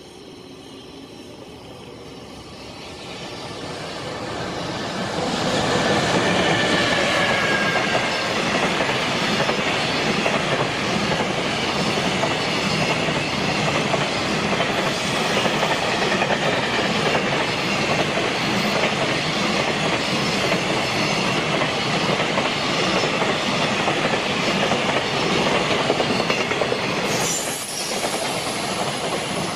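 JR Freight container train hauled by an EF210 electric locomotive approaching and running past at speed. The sound swells over the first several seconds into a steady loud roar of wheels on rail, with regular clicking from the Koki container wagons' wheels passing over rail joints and thin high tones above the roar.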